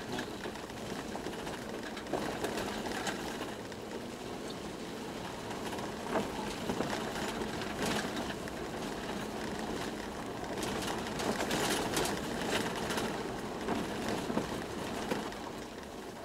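Toyota Land Cruiser 120 driving, heard from inside the cabin: a steady road and engine noise with scattered small rattles and knocks.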